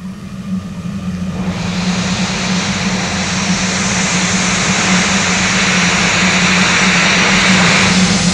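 Steam locomotive hissing steam, a steady rushing hiss that starts about a second and a half in and grows steadily louder, over a low steady hum.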